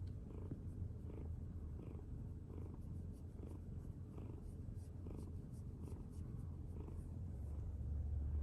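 Domestic cat purring steadily, pulsing with each breath a little more than once a second.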